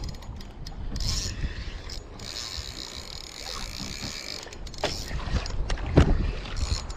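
Penn Battle 2 spinning reel being cranked to retrieve a hooked fish, its gears whirring as the handle turns, over low wind and water rumble. Several sharp knocks near the end, one louder than the rest.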